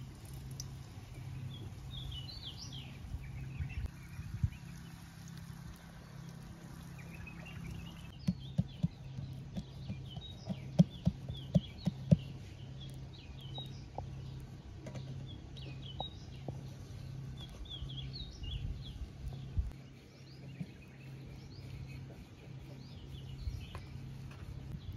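Small birds chirping and singing over a low steady hum. A run of sharp taps, the loudest sounds, comes about a third of the way in.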